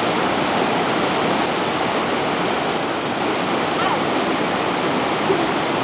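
Fast-flowing mountain stream rushing over rocks, a steady loud wash of water.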